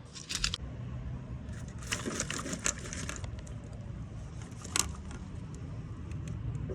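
Light clicks, clinks and rattles of hands working the wiring harness and its plastic clips and connectors loose from a Toyota 2JZ-GE engine, over a steady low hum. There is a cluster of clatter a couple of seconds in and one sharp click about five seconds in.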